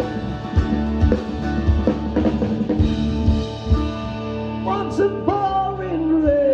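Live band of guitar, bass and drum kit playing the end of a song: steady drum hits under held chords for about four seconds, then the drums drop out and the band holds a final chord while a long note slides downward over it.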